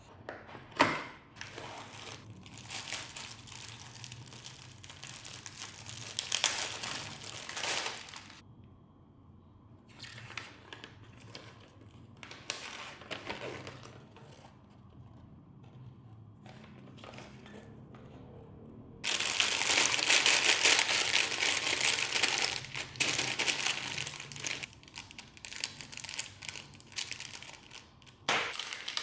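Plastic packaging of a building-brick set being handled, crinkling and rustling in irregular bursts, loudest for a few seconds about two-thirds of the way in.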